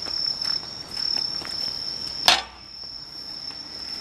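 Steady high-pitched insect buzzing, with one sharp click a little past halfway, after which the background is quieter.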